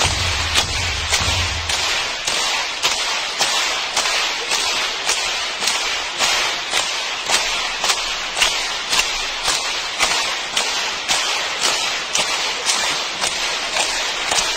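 Large concert audience clapping in unison, a steady beat of a little over two claps a second over a wash of general applause. A low musical rumble underneath stops about two seconds in.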